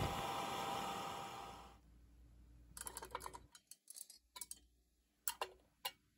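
Hairdryer on high heat blowing steadily for under two seconds, then stopping. A series of light, uneven clicks and ticks follows as the sliding weights on an Ohaus beam balance are nudged along the beam.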